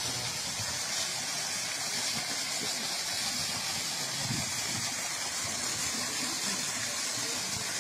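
A steady, even rushing hiss, heaviest in the high range, with no engine note.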